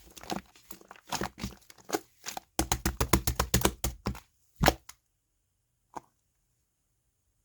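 Slime being mixed and squished by hand, giving a quick run of wet crackling snaps and pops. The pops stop a little past halfway after one last loud pop, with a single faint click later.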